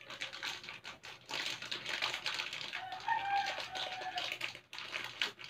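Thin cardboard product boxes being folded and handled: crisp clicks, creases and rustling in quick irregular succession. A short tonal sound, like an animal call, comes in the background about three seconds in.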